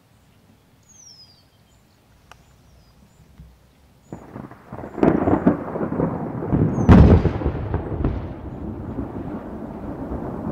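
Thunder: a rumble breaks in suddenly about four seconds in, with two loud cracks about two seconds apart, then keeps rolling and slowly fades.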